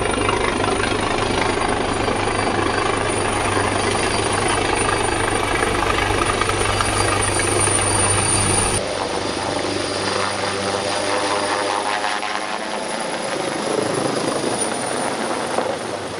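Helicopter rotors and engines running close by: a steady loud rush over a low drone. About nine seconds in, the sound cuts abruptly to a thinner, quieter rotor noise, which fades near the end.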